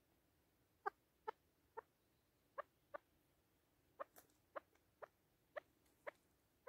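Caged chukar partridge making a string of short, sharp ticks, about a dozen at uneven spacing, roughly two a second.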